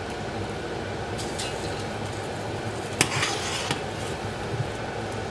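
Steel colander and utensils clinking and scraping against a steel pot as parboiled rice is spooned in over the chicken, with one sharp metal clink about three seconds in followed by a brief rustle of rice. A steady low hum runs underneath.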